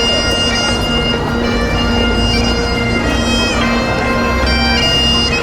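Bagpipes playing a tune: melody notes changing over a steady, unbroken drone.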